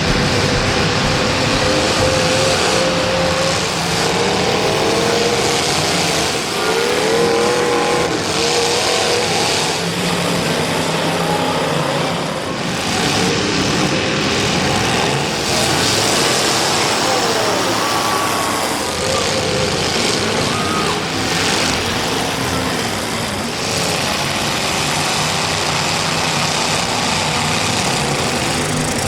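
Demolition derby cars racing on the track, engines revving and rising and falling in pitch, with voices mixed in.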